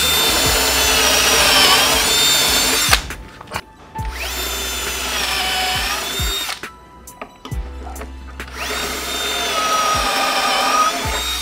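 Power drill boring pocket holes in plywood held in a clamped pocket-hole jig, in three runs with short pauses between; its whine sags in pitch as the bit cuts in and rises again before it stops.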